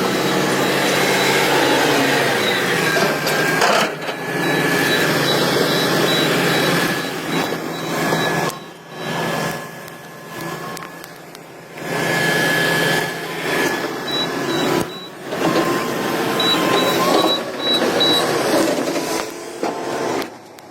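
Heavy earthmoving machinery running, its diesel engine revving up and down, with a fast high beeping like a warning alarm coming and going a few times.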